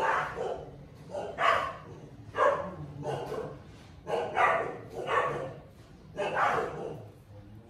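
A dog barking repeatedly, about eight barks roughly a second apart.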